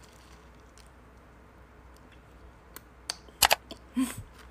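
Quiet room tone, then a few sharp clicks about three seconds in and a short noisy sound with a low hum near the end: mouth and plastic-tube noises from eating frozen ice-cream beads.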